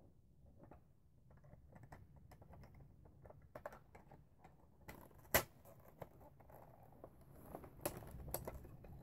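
Plastic parts of a Nerf Zombie Strike Doominator blaster clicking, tapping and rattling as it is handled and a dart drum is worked onto it, with one sharper click about five seconds in and a few more near the end.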